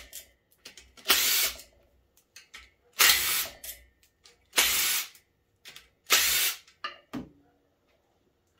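Cordless impact driver hammering out 10 mm bolts in four short bursts, about one and a half seconds apart, each under a second long. Between the bursts are small clicks of bolts and the socket being handled, and there is a short clink near the end.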